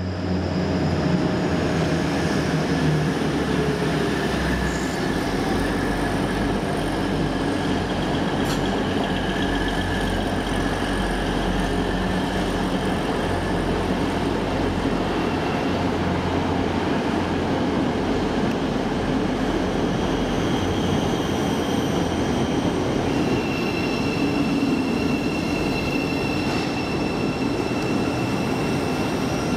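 Passenger train moving along the platform, running steadily, with thin high wheel squeals that grow stronger about two-thirds of the way through.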